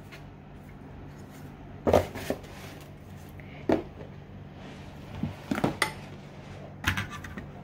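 Replica Akrapovic motorcycle exhaust mufflers knocking and clinking against each other and the table as they are handled and set down. It is a handful of separate clanks, the loudest about two seconds in.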